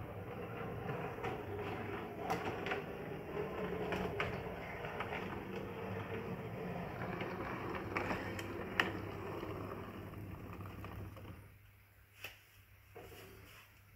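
Model tram running along its track: a steady electric motor and gear whirr with sharp clicks as the wheels cross rail joints and points. The whirr drops away about eleven and a half seconds in as the train passes, leaving a couple of faint clicks.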